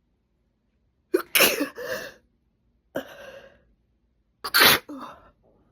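A woman sneezing three times in quick succession, deliberately induced, about a second and a half apart. The first and last sneezes are loudest and the middle one is weaker.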